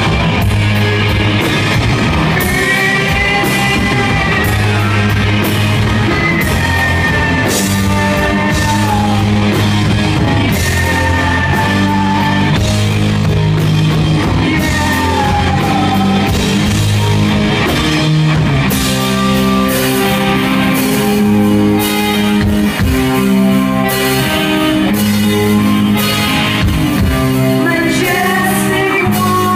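Live rock band playing, a woman singing over drums, cymbals, bass and guitar. The drums and cymbals grow busier about two-thirds of the way through.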